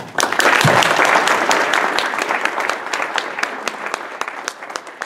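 Audience applauding, loudest in the first second or two and gradually thinning out toward the end.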